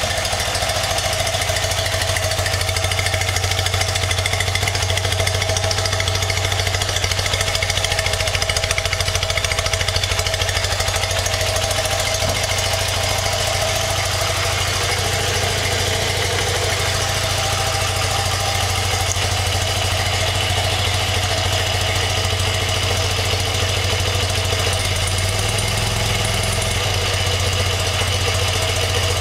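BMW R100RS air-cooled boxer twin idling steadily while its carburettors are adjusted and balanced on a vacuum gauge. Its note shifts slightly near the end.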